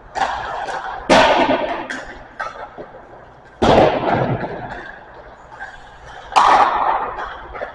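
Sharp cracks of hockey pucks being shot and striking the boards, echoing around the ice rink. Three loud cracks about one, three and a half and six and a half seconds in, with lighter knocks between.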